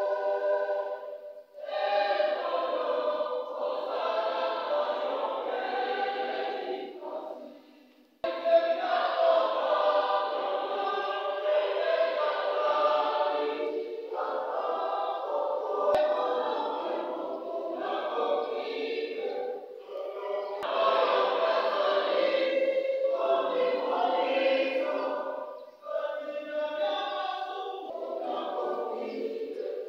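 Church choir of many voices singing a hymn in long phrases, with short breaks between them.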